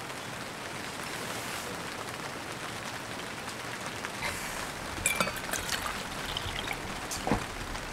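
Coffee poured from a glass server into a stainless steel tumbler over a steady hiss, with a few light clinks about five seconds in and a knock near the end.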